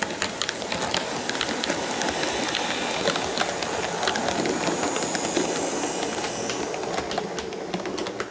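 H0-scale Piko and Roco model electric locomotives rolling along the track: a steady motor and wheel rumble with many sharp clicks from the wheels on the rails. It fades near the end as the train moves away.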